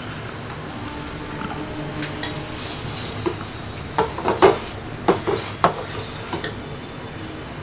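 Metal ladle scraping and clinking against the sides of a stainless steel pan while stirring milk being boiled down. The sharpest knocks come around the middle, in two quick clusters.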